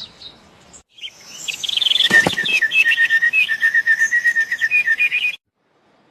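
A small bird chirping in a fast run of short, high notes, with a single click partway through; the chirping stops abruptly about five seconds in.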